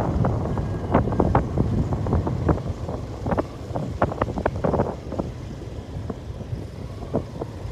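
Wind buffeting the microphone while riding along a rough dirt road, over a low steady rumble, with many irregular knocks and rattles from the bumps.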